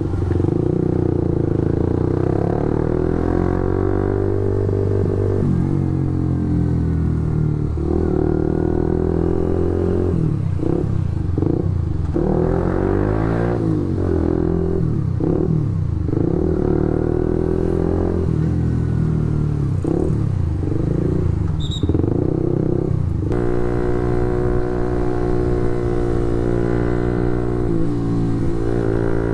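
Suzuki GSX-S150's single-cylinder engine running through an aftermarket SARP exhaust while riding, a loud exhaust note. Its pitch rises and falls several times in the middle as the throttle is worked, then holds steady for the last several seconds.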